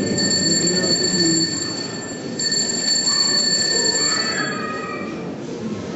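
An altar bell rings, a steady, high-pitched ringing as the chalice is raised at the consecration. It breaks off briefly about two seconds in and stops after about four and a half seconds, marking the elevation.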